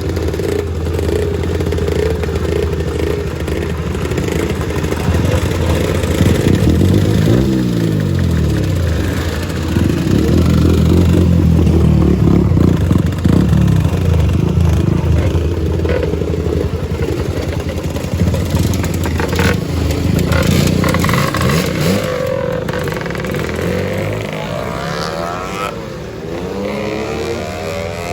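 Lambretta scooters' two-stroke engines running and revving as the scooters ride off one after another, the pitch rising and falling as each one passes. The sound thins out near the end.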